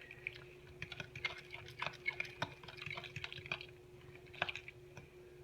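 Stirring a thick, wet mixture of water and flour in a bowl: irregular wet clicks and small splashes.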